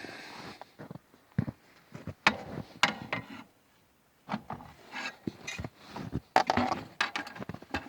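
Irregular wooden knocks, clunks and scraping as timber and mill parts are handled, with a short quiet spell about halfway through; no saw or motor running.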